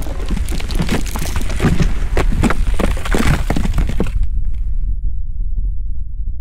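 Logo-reveal sound effect: a run of shattering, breaking-glass hits over a steady low rumble. About four seconds in, the shattering cuts off suddenly and the low rumble carries on, slowly fading.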